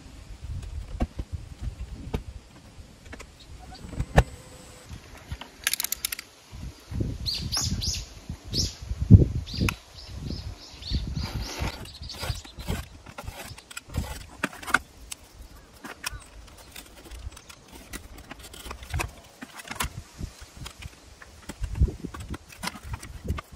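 Intermittent knocks, taps and short scrapes of hands handling wooden panels and tools: a plywood camper door, then a plywood board and metal ruler. A sharper thump stands out about nine seconds in.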